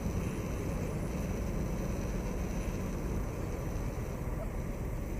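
Steady low outdoor rumble, with a faint high steady tone above it; nothing stands out.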